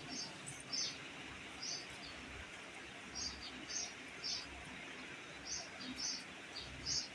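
Pet parrot giving short, high chirps, about a dozen at uneven intervals, over a steady background hiss.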